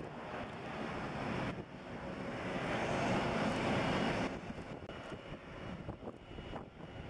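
Boeing 777-200ER's twin jet engines running at taxi power, a steady rushing jet noise that swells and then drops off sharply about four seconds in. After the drop a faint high engine whine carries on.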